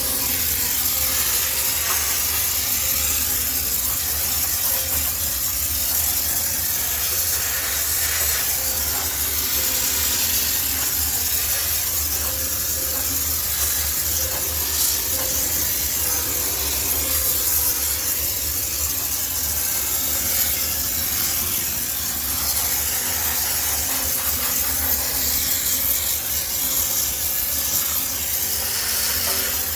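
High-pressure steam sterilizer jetting steam in a steady hiss that keeps up without a break, with a low hum underneath.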